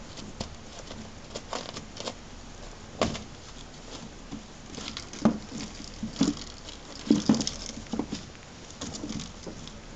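Month-old American Curl kittens scampering and tussling on an absorbent floor pad: an irregular light patter of paws with scratchy rustles of the pad and soft knocks, a few louder ones about three seconds in and again between five and eight seconds.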